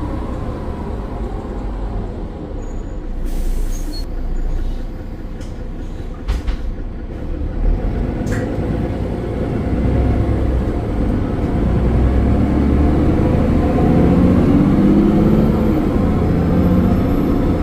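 Mercedes-Benz Citaro O530 bus's OM906 6.4-litre diesel engine running. A short hiss of air comes a few seconds in and a few knocks follow around the middle, then the engine grows louder through the second half.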